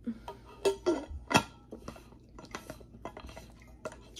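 A run of light clicks and knocks from objects being handled close to the microphone, the loudest about a second and a half in, with smaller ticks after it.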